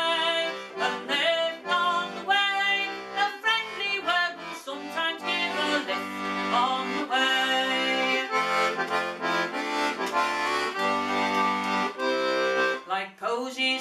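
Accordion playing an instrumental break between verses of a folk song: a melody over held chords, with a separate bass line underneath.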